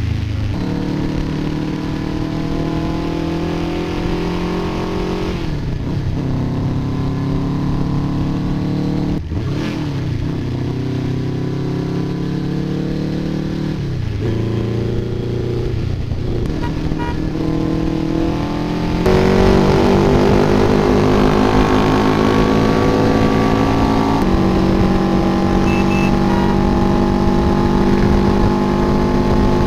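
MV Agusta 600 four-cylinder motorcycle engine heard from the rider's seat, accelerating through the gears. The pitch climbs slowly and drops sharply at each upshift, three times. About two-thirds of the way in it grows louder and holds a steadier, higher pitch.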